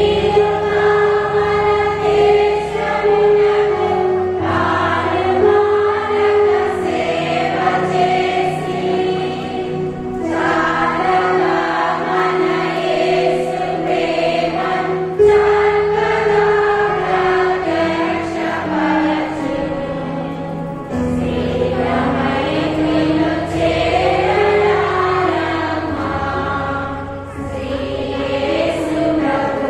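Women's choir singing a hymn together, accompanied by an electronic keyboard playing a steady melody line over long held bass notes.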